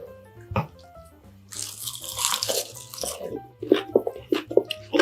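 Close-miked chewing over background music: a single knock about half a second in, a burst of rustling and scraping a second or so later, then steady rhythmic chewing of a mouthful of rice and bean sprouts, about three chews a second.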